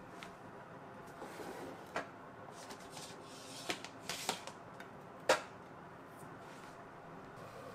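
Light clicks and knocks of a plastic container lid being handled and set down on a kitchen countertop, with a brief rustle in the middle; the sharpest knock comes a little past halfway.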